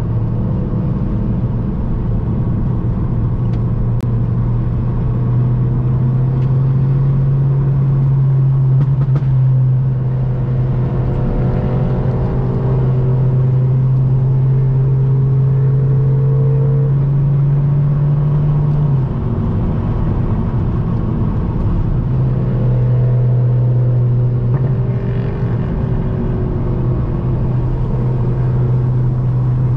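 Turbocharged four-cylinder of a modified VW GTI with a catless downpipe and track catback, droning low and steady under way over road noise. Its pitch steps up a few seconds in. The drone drops away just before twenty seconds in and returns about three seconds later.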